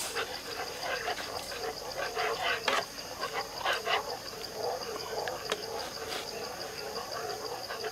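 Metal ladle stirring and scraping through simmering chili sauce in a frying pan, in a repeating rhythm with several sharp clinks against the pan. Insects keep up a steady high pulsing drone behind it.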